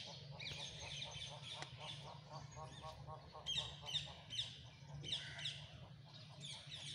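A colony of fruit bats (flying foxes) squabbling: many short, shrill squeals falling in pitch, in quick succession and most dense about halfway through, over a rapid lower chatter.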